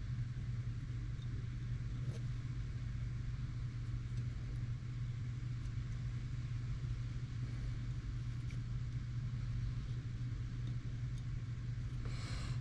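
Steady low hum of background noise, with a few faint small clicks of pistol parts being handled during assembly.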